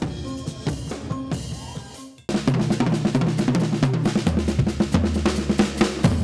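Drum kit played in fast, busy patterns of drum strikes and cymbals. A little over two seconds in it stops abruptly and a louder drum passage starts, with a steady low tone beneath it.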